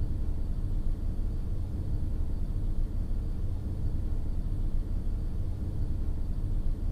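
Steady low rumble of a car driving on a snow-covered road, engine and tyre noise heard from inside the cabin.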